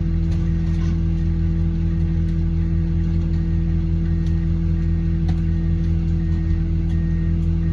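Heavy machinery engine running steadily at a constant speed, with a faint high beep repeating about twice a second.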